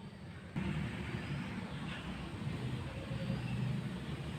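Steady low engine rumble of a vehicle going by, growing louder about half a second in.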